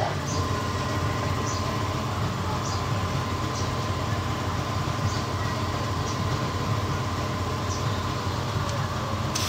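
A machine running steadily with a low hum and a thin steady tone above it, and a faint light tick about once a second.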